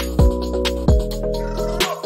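Background music with a steady beat: held low notes and bass under regular percussion hits.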